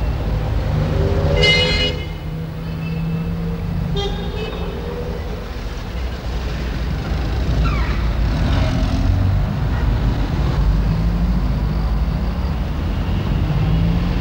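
City street traffic: passing cars give a steady low rumble, with short car-horn toots about a second and a half in and again about four seconds in.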